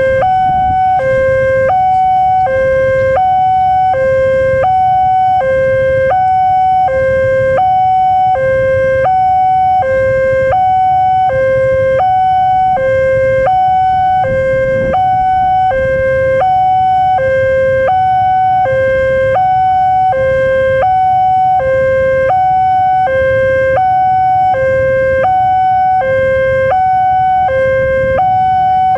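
Railway level-crossing warning alarm sounding from the signal post's loudspeaker: a two-note electronic tone that swaps steadily between a lower and a higher pitch, about one low-high cycle every one and a half seconds, signalling that a train is approaching. A steady low rumble lies underneath.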